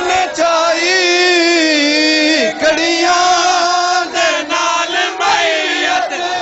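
A man chanting a noha, a Shia mourning lament, in long held lines with a wavering pitch. A few sharp strikes cut through it.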